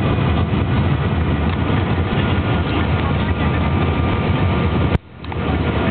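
Steady jet engine and airflow noise inside the cabin of an Airbus A319 on approach to land: a low, even rumble with a faint steady whine on top. About five seconds in there is a sharp click, and the sound drops away and then swells back.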